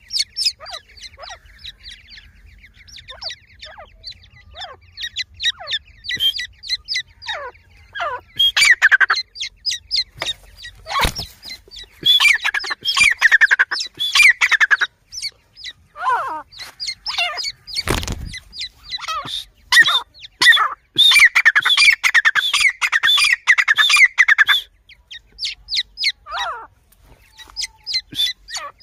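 Grey francolin chicks peeping: many short, high chirps that fall in pitch, coming in quick runs that crowd together in two long bursts midway, with two dull knocks among them.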